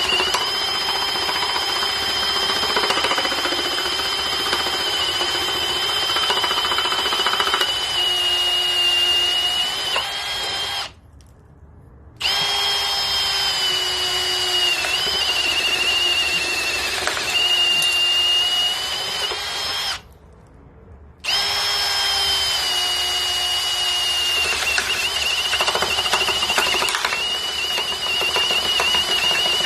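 Milwaukee ONE-KEY brushless hammer drill running under load, boring with a 1-inch nail-strike bit through wood studded with old nails. It gives a high whine whose pitch sags and recovers as the bit chews through the nails. It stops briefly twice, about 11 and 20 seconds in, and starts again each time.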